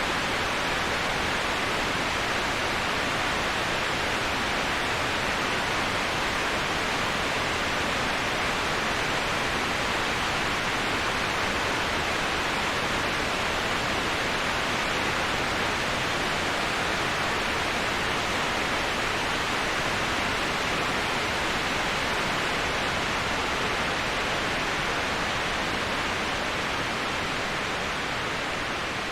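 Waterfall: the steady rush of falling water as an even hiss without any distinct splashes or events, slightly softer near the end.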